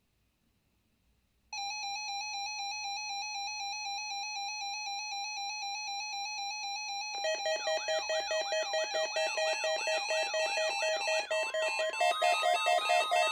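NOAA weather alert radio receivers sounding their electronic alarm for the weekly test. A steady pulsing beep starts about a second and a half in, a second warbling alarm joins about halfway through, and a further tone adds near the end.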